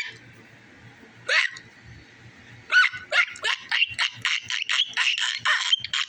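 High-pitched, squeaky voiced hiccups: one at the very start and another about a second and a half in. From about three seconds in comes a fast string of short yelping hiccups, about four a second.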